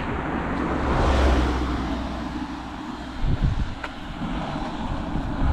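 A small truck passes on the bridge road, its tyre and engine noise swelling about a second in and then fading as it drives away. Wind buffets the microphone with low gusts throughout.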